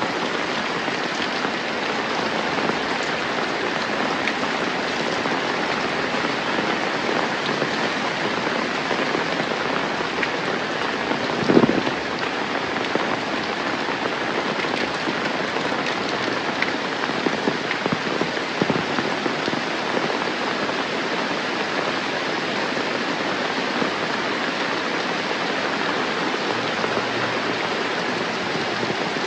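Steady rain falling, with scattered drops ticking. There is one louder, short thump a little before the middle.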